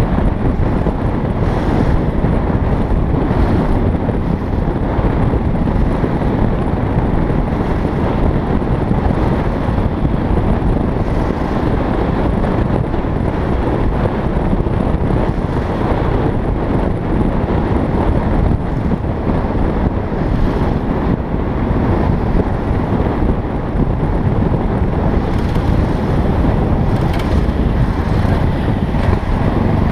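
Yamaha XT660Z Ténéré's single-cylinder engine running while riding, nearly buried under steady wind noise rushing over the bike-mounted camera's microphone. The sound holds evenly throughout.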